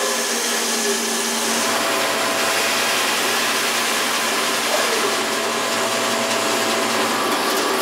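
15-inch bandsaw with a riser block, running steadily while its blade rips lengthwise through a bark-covered log to cut a flat footing off one side.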